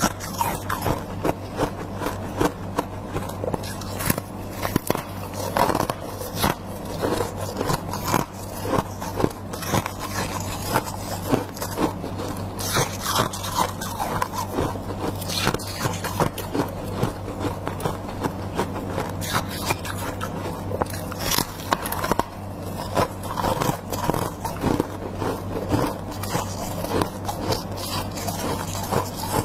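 Close-up crunching and chewing of freezer frost, a dense run of irregular crackling bites with scraping, over a steady low hum.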